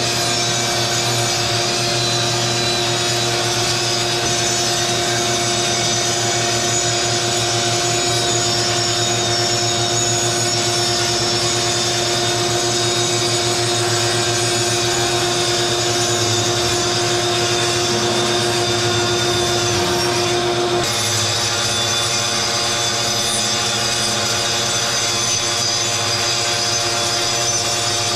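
A 60-volt cordless grinder cutting through a lath-and-plaster wall, with a shop vacuum drawing the dust off through a hose on the grinder. It runs steadily throughout, and its whine shifts abruptly in pitch about three-quarters of the way through.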